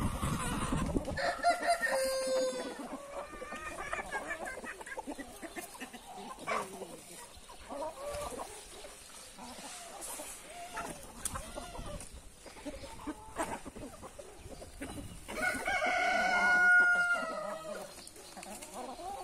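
A flock of hens and roosters clucking as they peck at scattered feed, with a rooster crowing near the end.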